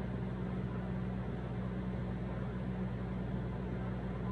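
Steady low electrical or machine hum with an even hiss underneath: room tone, with no other sound.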